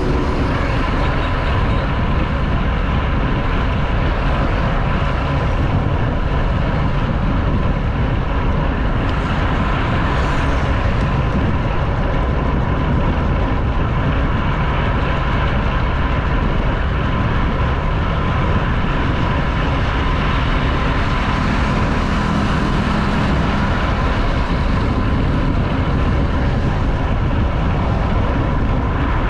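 Steady rush of wind and road noise on a handlebar-mounted GoPro while riding a road bike at speed, mixed with motor-traffic noise and a thin steady whine.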